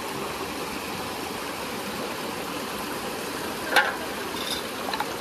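Stream water splashing steadily over stones and out of a pipe while dishes are rinsed in it, with one sharp clink of dishware about four seconds in, then a few lighter clicks.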